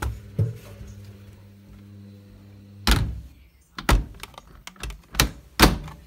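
A low steady hum stops with a knock about three seconds in. A few more knocks follow, ending in the loudest thump as the Candy tumble dryer's door is pushed shut.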